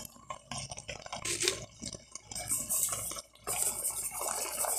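A wooden spoon stirring diced chicken and seasoning in a pot of cooking liquid: soft wet sloshing with irregular small knocks and clinks against the pot.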